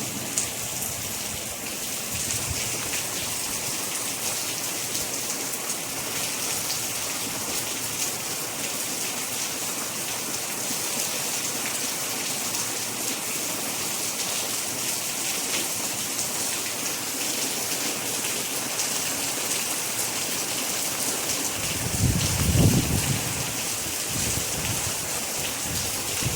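Steady rain falling, an even hiss of many drops, with a brief low rumble near the end.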